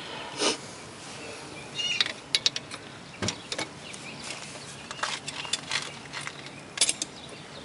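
Scattered metallic clicks and clinks of a socket and breaker bar being worked on a brake caliper bolt as it is tightened, coming in small clusters.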